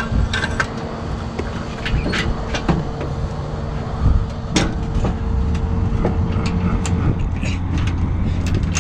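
Mini excavator's diesel engine running steadily while the machine is positioned on a trailer, with scattered metallic clanks and knocks. The engine note shifts lower about five seconds in.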